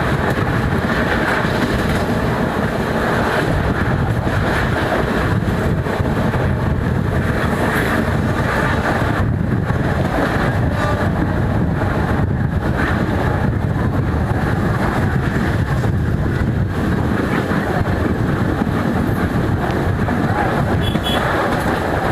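Heavy diesel engine of a track-construction machine running steadily with a dense low rumble, with wind buffeting the microphone.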